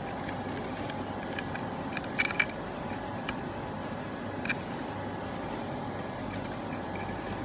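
Steady room hum with a few small, sharp clicks of metal hardware: a brass hex standoff and screws being handled and fitted onto a printer circuit board. Two clicks come close together about two seconds in, and another about four and a half seconds in.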